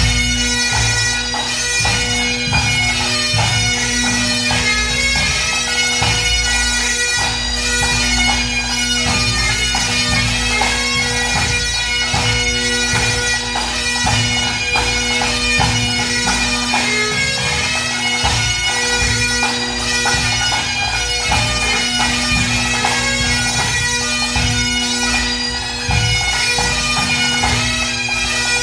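Highland pipe band playing a march, strathspey and reel set: the bagpipe drones hold one steady note under the chanter melody, with snare drums and a bass drum beating along.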